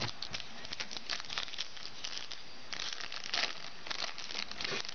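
Crinkling and rustling of a trading-card pack wrapper and cards being handled, a dense run of small crackles with a couple of longer rustles in the second half.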